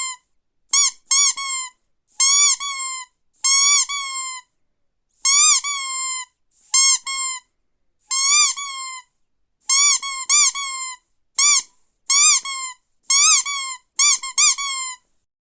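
Squeaky dog toy squeaked over and over: short, high squeaks that rise and fall in pitch, about one a second and often two in quick succession, stopping near the end.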